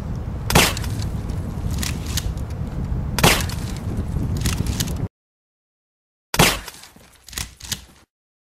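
Gunshots: two sharp cracks over wind noise on the microphone. After a moment of dead silence comes a third, louder shot with a short fading tail, followed by two smaller cracks.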